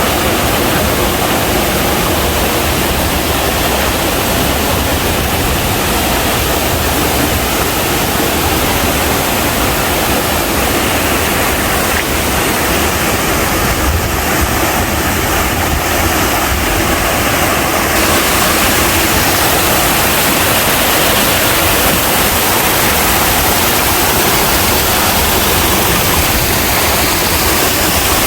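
Rushing water of a mountain stream and waterfall: a loud, steady roar of falling and tumbling water.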